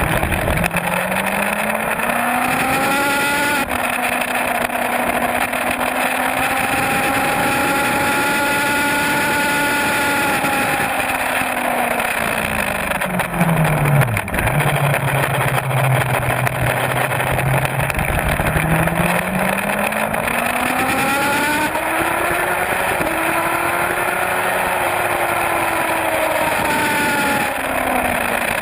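Suzuki GSX-R750 inline-four engine at speed, with steady wind rush. The engine note climbs and steps down at a gear change a few seconds in, falls as the bike slows between about ten and fourteen seconds in, holds low, then climbs again with another shift in the last third.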